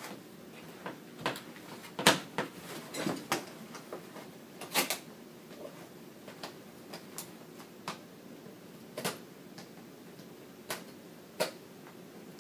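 A cardboard box being handled and its top cut open with a box cutter: scattered short taps, scrapes and knocks of cardboard, loudest in a cluster about two to three seconds in and again near five seconds.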